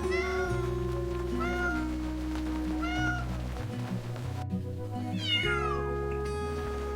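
A cat meowing: three short meows about a second and a half apart, then a longer meow that falls in pitch near the end, over gentle background music.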